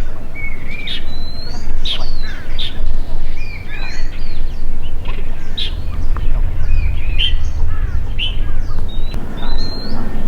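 Several small songbirds chirping and calling, a busy overlapping stream of short notes that swoop up and down, over a steady low rumble.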